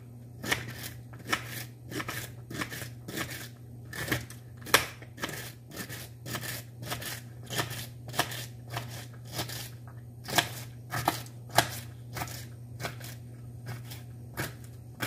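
Kitchen knife chopping vegetables on a cutting board: sharp, uneven knocks about two a second, with a steady low hum underneath.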